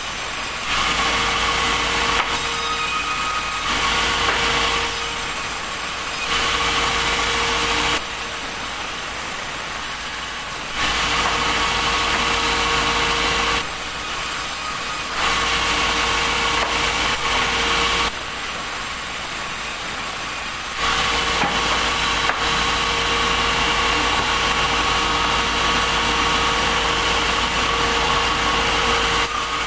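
Sawmill machinery running as logs are sawn: a steady engine hum with a high whine, its level and character changing abruptly every few seconds.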